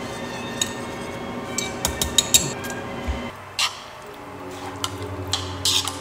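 Ceramic dishes and metal utensils clinking and tapping: scattered sharp clinks, a quick cluster about two seconds in and a few more near the end.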